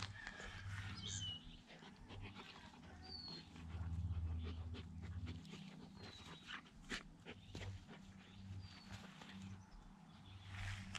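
A vizsla puppy and a goldendoodle play-wrestling: low, rumbling play growls come and go, loudest about four seconds in, over scuffling in the grass. A few faint bird chirps can be heard behind.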